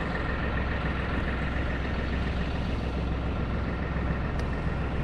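Tractor-backhoe engine running steadily at idle, a constant low hum.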